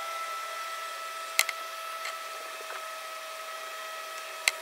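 A steady hum of a running appliance or fan with a faint high whine, broken by two sharp clicks about three seconds apart.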